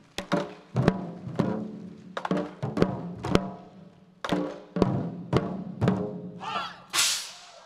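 Ensemble of large Chinese drums struck with sticks in unison: loud, separate accented hits that ring on briefly, in an uneven pattern of about two a second with short pauses. Near the end, a shout and a sharp noisy burst.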